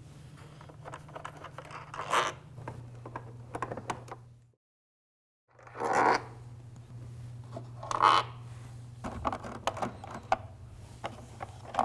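Screwdriver backing out the small Torx screws of a motorcycle's inner fairing: scattered scratchy scrapes and clicks of the bit and the screw threads, over a steady low hum. The sound drops out completely for about a second near the middle.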